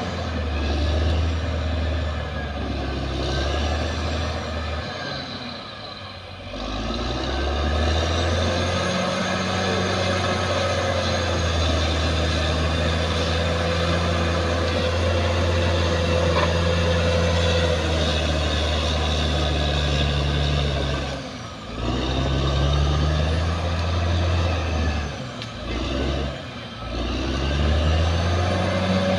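Caterpillar D6R XL bulldozer working, its diesel engine running steadily under load with the clatter and grind of tracks and blade over it. The engine note drops briefly a few times and then picks up again.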